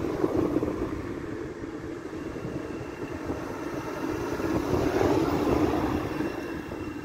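Electric multiple-unit passenger train approaching along the main line: a steady rumble of wheels on rail that swells about five seconds in, with a faint high whine above it.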